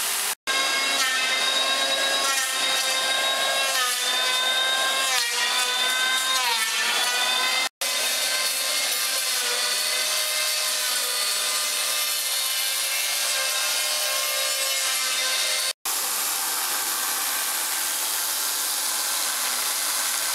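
Electric power tools cutting and carving wood, a corded electric chainsaw and an angle grinder with a carving disc, their motor whine rising and falling under load. There are three brief silent breaks between clips.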